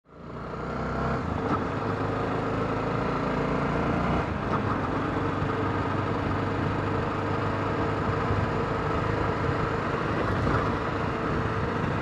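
Honda XRE 300's single-cylinder engine with its stock exhaust, heard from the rider's seat while riding. It fades in, accelerates, changes note about four seconds in, then runs steadily.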